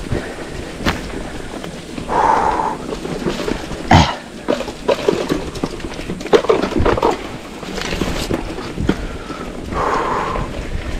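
Mountain bike being ridden over a rough dirt trail, with sharp knocks and rattles from the bike over bumps and a rumbling wind noise on the camera's microphone.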